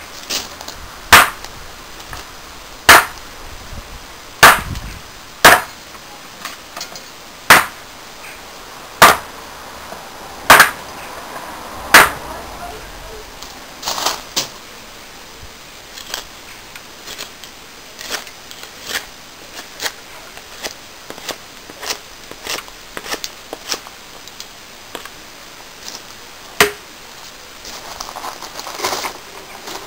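Billhook chopping into a pine plank and log block to test its newly sharpened edge: about eight sharp, loud chops every second or so through the first twelve seconds, then lighter, scattered cuts, with one more hard strike near the end.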